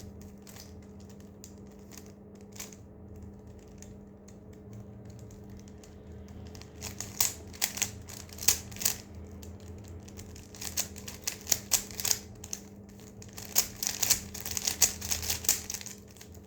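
Rubik's cube being turned quickly by hand: its plastic layers click and clack in rapid runs, sparse at first and much denser in the second half. A faint steady hum lies under the clicking.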